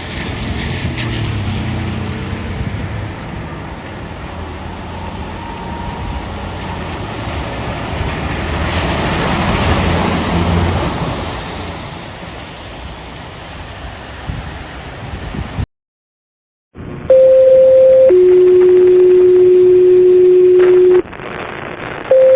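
2023 Seagrave Marauder ladder truck driving past, its engine noise building to loudest about ten seconds in and then fading. After a brief dropout, fire dispatch alert tones come over a scanner radio: a steady higher tone, a longer lower tone, and the higher tone again near the end.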